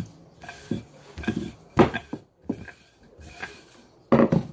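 Irregular knocks and rubbing from a wooden rolling pin handled and rolled over dough on a wooden pastry board, a handful of separate thuds with the loudest near the middle and just before the end.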